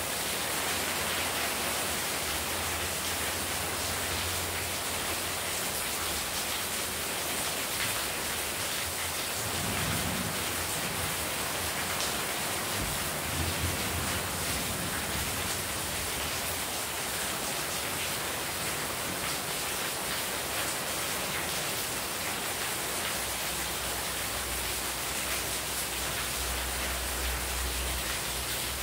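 Heavy rain falling steadily, water streaming off a roof edge and splashing onto a paved floor and potted plants. A low rumble swells a few times underneath, most strongly near the end.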